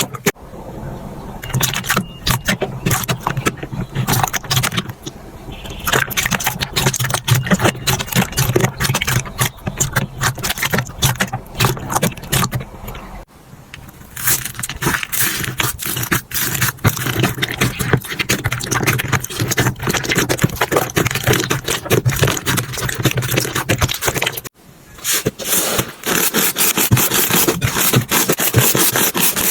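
Slime being squeezed and poked by hand, making dense crackling and clicking, with the sound changing abruptly twice, about 13 and 25 seconds in.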